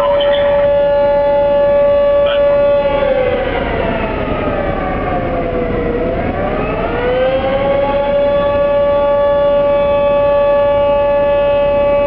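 Fire department's outdoor alarm siren wailing: a loud steady tone that sags in pitch about three seconds in, bottoms out around six seconds, climbs back up and holds steady, then begins to fall again near the end.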